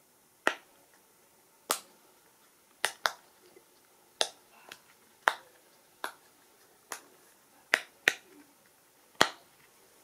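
Bubbles of a silicone pop-it fidget toy being pushed through one at a time, each giving a sharp pop. There are about a dozen pops at roughly one a second, two of them in quick pairs.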